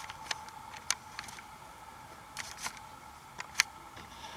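Camera handling noise: a few sharp, irregular clicks over a faint steady hum while the camera is reframed and zoomed out.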